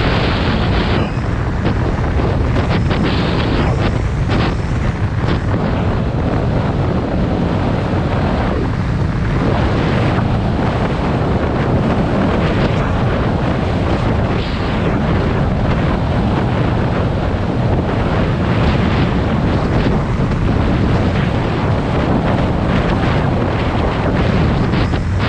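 Suzuki DR650RSE single-cylinder engine running steadily while the motorcycle is ridden, with heavy wind noise on the microphone.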